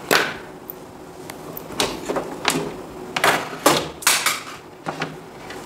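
Handling noise of a charger circuit board and test leads being moved, turned over and set down on a cardboard-covered workbench: a run of about eight short knocks, taps and rustles.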